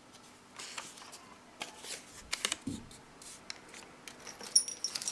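Handling noises from a small metal padlock and its wrapping: rustling and scattered small clicks, then a sharper metallic click near the end that rings briefly.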